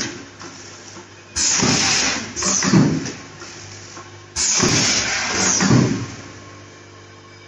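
Vertical form-fill-seal pouch packing machine with a four-head linear weigher running through its bagging cycle. It makes sharp-edged bursts of noise in pairs, the pairs about three seconds apart, over a steady low hum that is left on its own near the end.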